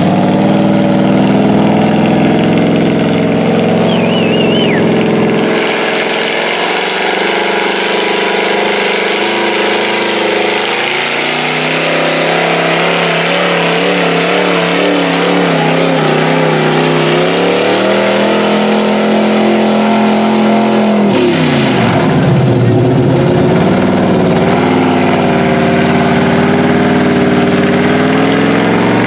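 Chevy mud truck's big-block V8 running hard under load as its tires churn through deep mud and water, with the engine pitch rising and falling. About two-thirds of the way through, the revs drop sharply and then climb back.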